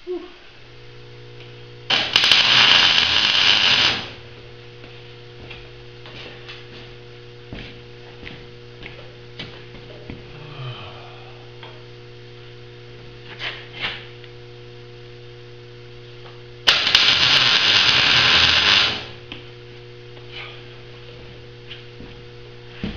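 Battery-powered electric winch on a homemade grader running twice, about two seconds each time, near the start and again about two-thirds of the way in. A steady electrical hum runs under it.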